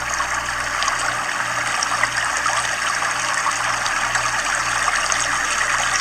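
Fast-flowing flash floodwater rushing past flooded houses: a steady, loud, even rush of water.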